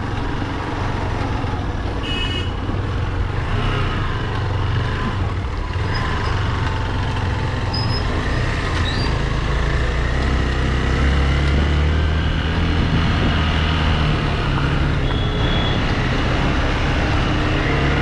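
Motorcycle engine running with wind and road noise while riding, a steady low rumble. Two short high beeps sound, about two seconds in and again near the end.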